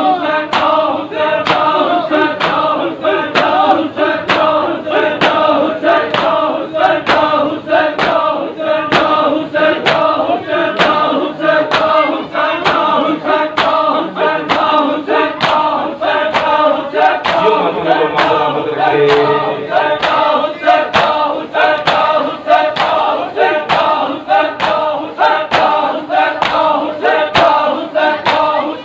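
Group of men chanting a Muharram lament in unison while beating their chests in matam: sharp, even hand slaps on bare chests, about three every two seconds, keep time under the chant.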